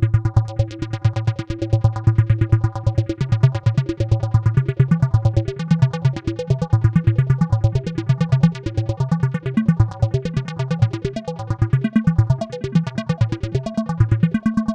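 Electronic synthesizer music with a fast, even pulse over sustained notes and a strong bass line.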